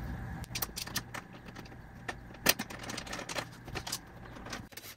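A vinyl convertible soft top being handled and pressed into place: scattered light clicks and crinkles, the sharpest about two and a half seconds in.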